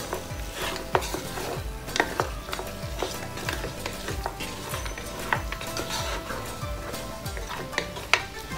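Beef, onions and tomato sizzling in a coated pot while a wooden spatula stirs and scrapes them, with a few sharp knocks of the spatula against the pot.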